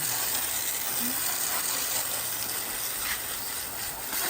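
WoodMizer LX55 band sawmill running, a steady hiss with a low hum underneath.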